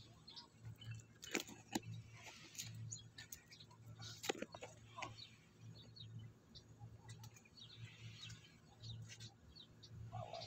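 Faint, scattered bird chirps, with a few sharp clicks and a low, wavering hum beneath.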